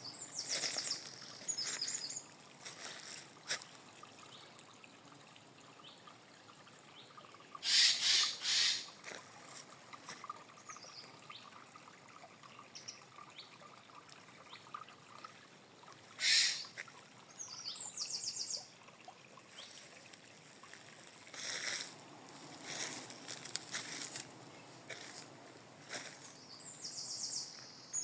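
Outdoor nature ambience with a bird repeating a short, high, rapid trill several times over a faint trickle of water. A few brief louder rushes of noise break in now and then.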